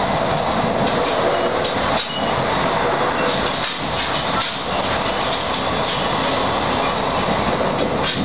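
Running noise inside a JR 14 series passenger coach under way: a steady rumble of wheels on rail, with a few knocks as the wheels cross rail joints, one near the end.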